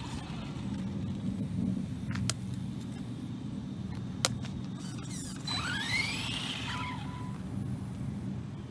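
Brushless motor of a brushless-converted Arrma Senton RC truck whining as it is throttled: the pitch rises and falls once in the second half, over a steady low rumble, with a couple of sharp clicks earlier.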